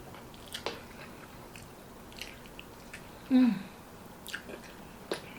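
Close-miked mouth sounds of a person eating: soft wet chewing clicks and smacks, with one short "mm" hum of enjoyment a little past the middle, the loudest sound.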